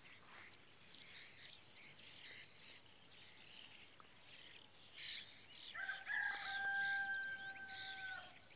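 A rooster crows once, a long held call starting a little under six seconds in, over small songbirds chirping.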